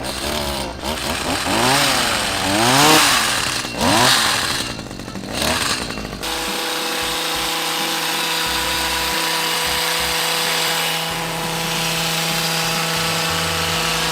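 Toy hedge trimmer's motor sound effect: a revving that rises and falls several times, then, about six seconds in, a steady running hum.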